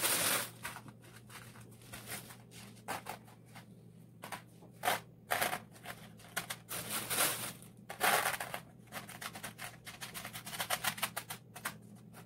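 Small decorative stones clicking and scraping as fingers push and arrange them on a stretched painting canvas: a patter of small clicks with a few louder scraping rustles.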